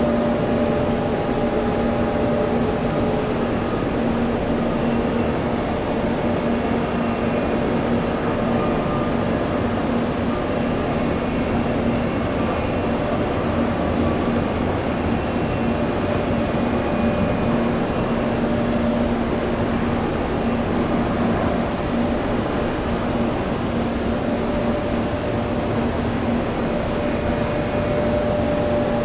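Steady machine drone with a few held hum tones, even in level throughout.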